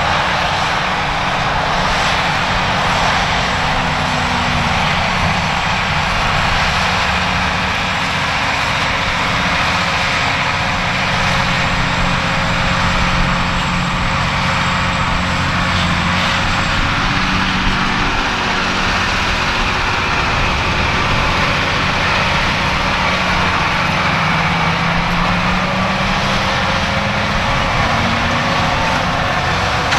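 John Deere 7R 330 tractor's six-cylinder diesel engine running steadily under load while pulling a Köckerling Quadro cultivator. The engine note wavers slightly and climbs near the end.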